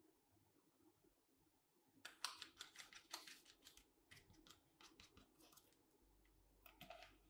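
Quiet, short scratchy strokes of a plastic glue spreader working glue across leather, starting about two seconds in, then a few brief rustles of the leather being handled near the end.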